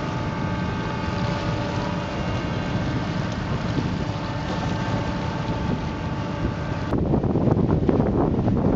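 Boat engines running steadily offshore, a constant drone with a few even tones over wind noise. About seven seconds in the sound changes abruptly to gusty wind buffeting the microphone.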